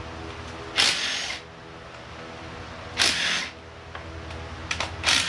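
Handheld cordless power driver spinning in three short bursts, about two seconds apart, as it backs bolts out of an engine being torn down. A few small clicks come just before the last burst.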